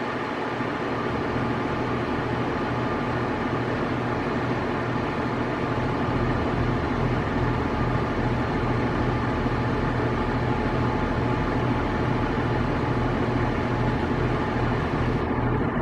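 A large vehicle engine running steadily, a low, even drone with a faint pulse in the bass.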